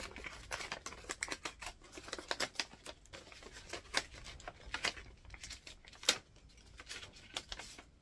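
Paper rustling and crackling in short, irregular bursts as a greeting-card envelope is opened and the card drawn out, with one sharper crackle about six seconds in.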